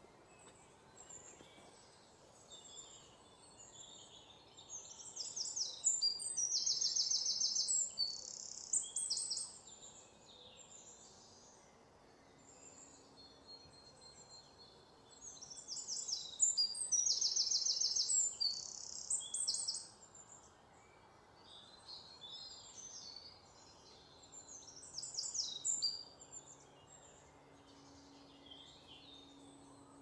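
Songbird singing: three loud spells of rapid, high repeated notes, the first two several seconds long and a shorter one later, with quieter chirps between them over a faint steady background hiss.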